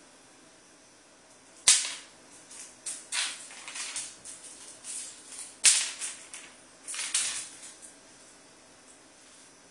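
A cat batting a mint in a plastic wrapper across a laminate floor: scattered bursts of crinkly rustling and skittering, with two sharp clicks, about a second and a half in and just past halfway, as the loudest sounds.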